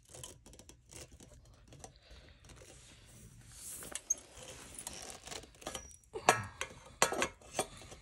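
Scattered clicks, knocks and rattles of a support pole being handled and fitted into the base of an animatronic clown prop, with sharper, louder knocks about six seconds in.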